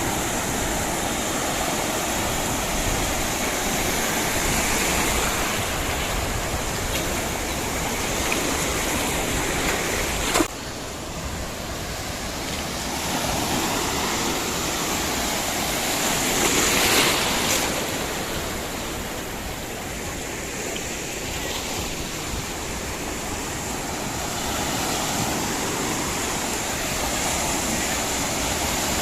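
Ocean surf washing onto the shore, a steady rush of waves that breaks off suddenly about a third of the way in, then carries on and swells louder briefly just past halfway.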